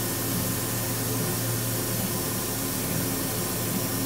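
Steady hum and hiss of a CO2 laser cutter and its chiller running while the beam fires with no material in its path, with no squeal.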